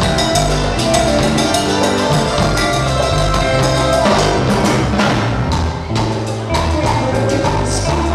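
Live band playing a dance number: hand-struck congas and a drum kit keep a steady beat over electric bass and electric guitar.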